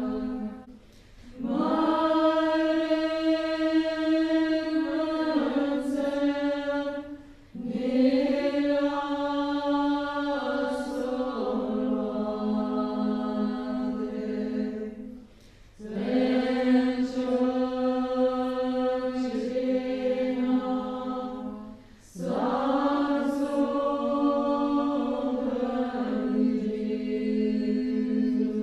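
A group of women singing a Bön long-life prayer together. They hold long notes that step down in pitch, in phrases about six seconds long, with a short breath between phrases.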